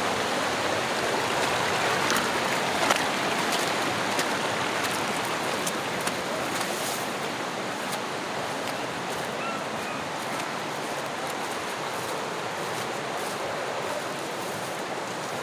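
Shallow rocky river rushing over stones: a steady rush of water that eases slightly later on, with a few faint ticks over it.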